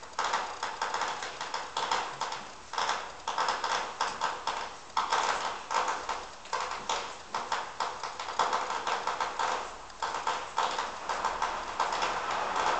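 Dogs' claws tapping and scrabbling on a hard floor as a small dog and a puppy play, in quick irregular clusters of clicks.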